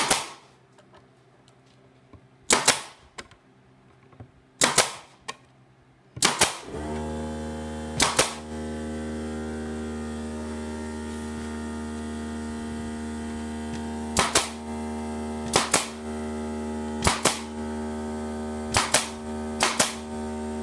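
Pneumatic brad nailer firing about ten times, sharp shots a second or more apart, driving brads into pine boards. About six seconds in, the electric air compressor kicks on and runs with a steady hum under the later shots, refilling the tank.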